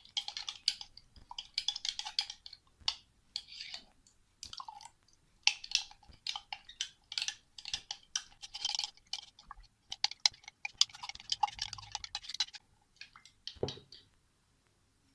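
Kitchen food-preparation sounds: repeated short scraping and clicking in bursts, ending with a single knock near the end.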